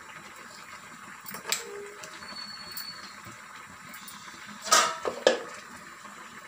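Steady soft hiss from a small steel pan of oil with garlic cloves heating over a lit gas burner. A faint click comes about one and a half seconds in, then a louder clatter and a sharp click about five seconds in.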